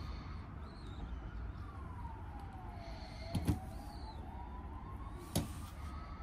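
A siren wailing slowly up and down over a low street rumble, with sharp knocks of the model suspension assembly being handled and set on the wooden table: two close together about three and a half seconds in, and one near the end.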